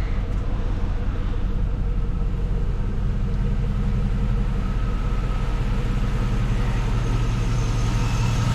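The 6.0-litre V8 of a 2004 GMC Yukon Denali idling steadily with a low hum. About seven seconds in, the hum grows stronger and a thin, higher whine joins it.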